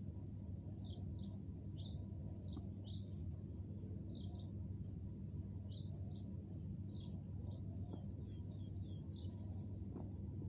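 Small birds chirping: short, high chirps a few times a second, irregular and continuing throughout, over a steady low hum.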